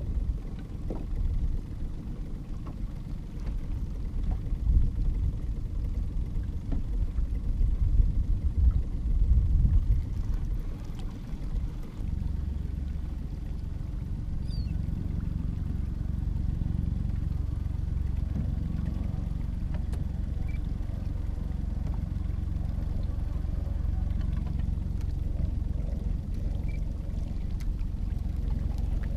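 Low rumble of wind buffeting the microphone out on open water, gusty for the first dozen seconds, then steadier.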